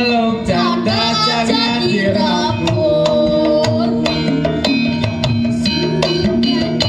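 Live Javanese gamelan ensemble playing a lively campursari piece driven by kendang hand-drum strokes, with a young girl singer's voice over it in the first couple of seconds.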